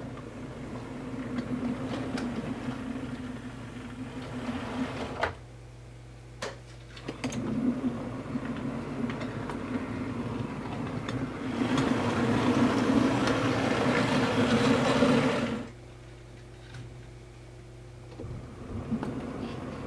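OO gauge model train running on the track: a steady motor hum with wheel rumble and scattered clicks, dropping away twice for a couple of seconds and loudest in the second half.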